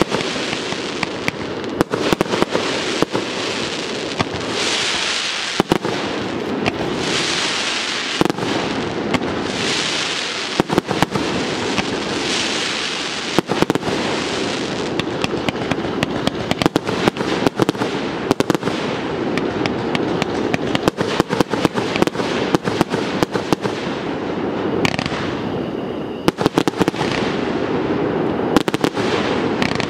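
Fireworks display firing continuously: a dense, unbroken run of aerial bursts and sharp bangs with crackling stars, and hissing spells of about a second, several times over. The firing thickens into a heavier barrage near the end.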